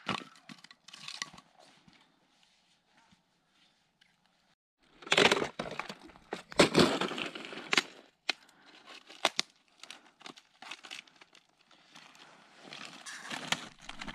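A split piece of firewood being torn apart by hand: a few seconds of tearing and splintering wood with sharp cracks, starting about five seconds in. Lighter knocks and rustles of wood being handled follow.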